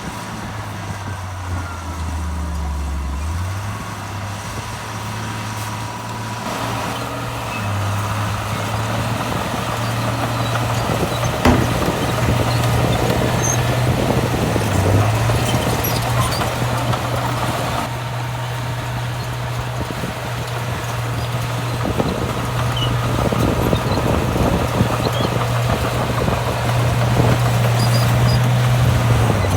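Heavy diesel earthmoving machinery working: a steady low engine note that dips and climbs in pitch a few times, with a rough mechanical noise building and growing louder over the second half.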